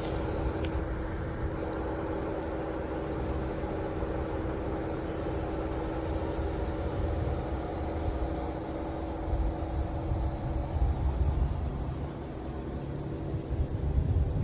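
Ford Bronco driving off-road, its engine running steadily with a low rumble that grows heavier and more uneven in the second half as it jolts over rough ground.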